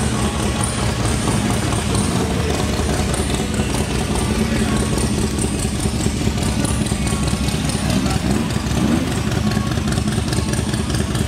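Custom dune buggy's engine idling as the buggy creeps along at walking pace, a steady low engine sound with a fast, even pulse.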